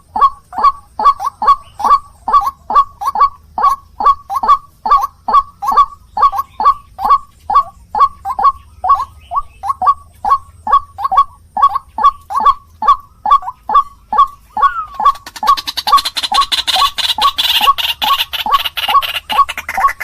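White-breasted waterhen (ruak-ruak) calling: a steady, monotonous series of short, loud notes, each dropping slightly in pitch, about two to three a second. A steady hiss comes in over the last few seconds.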